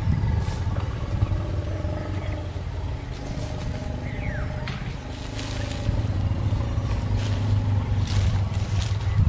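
Group of Asian elephants rumbling low and steadily, the rumbles drawing out into slowly gliding tones of a second or two each, with a few short breathy hisses mixed in.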